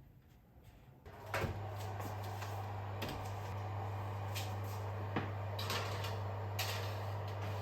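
A click, then an electric kitchen appliance starts up and runs with a steady low hum and a fan-like rush, with a few small clicks and knocks over it.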